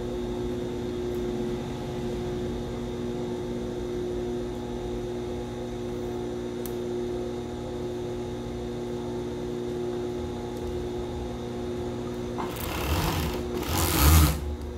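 Siruba industrial overlock (serger) machine with its motor humming steadily, then near the end it stitches a seam in two short runs, which are the loudest part.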